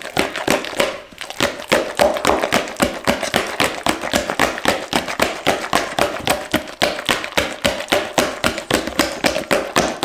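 Overripe bananas and beaten eggs being mashed in a jug, the utensil knocking against the jug in a quick, even rhythm of about five strokes a second.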